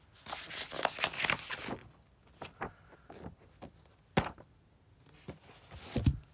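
Pages of a paper picture book being turned and handled: a rustle of paper in the first two seconds, then scattered taps and clicks, and a louder rustle with a thump just before the end as the book's cover is handled.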